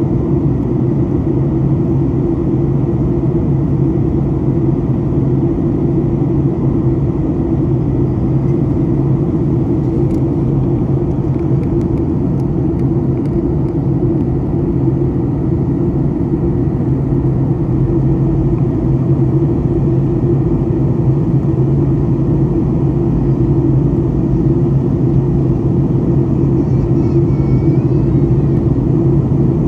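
Steady cabin drone of a Boeing 737 MAX 8 in the climb, heard inside the cabin by a window: its CFM LEAP-1B engines under power together with air rushing past the fuselage, a low, even rumble.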